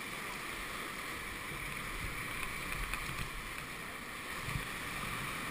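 Whitewater rapids rushing around an inflatable raft, a steady wash of churning river water.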